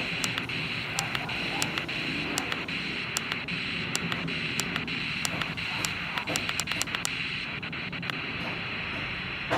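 HanRongDa HRD-737 portable receiver's speaker giving steady static hiss as it steps through VHF memory channels with no station coming in, with sharp clicks about once or twice a second.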